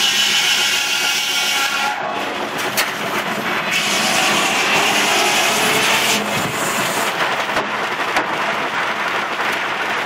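Sawmill running: a large circular saw spinning and cutting timber, with a loud, steady mechanical din. A high whine sounds for the first couple of seconds, and a harsher hiss rises about four seconds in and eases off about two seconds later, with a few sharp ticks of wood and machinery.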